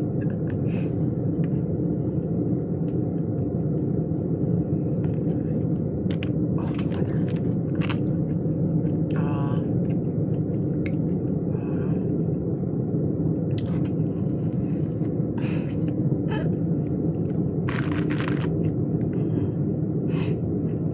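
Close-miked eating sounds: chewing and crunching of food, with scattered crisp clicks, over a steady low rumble.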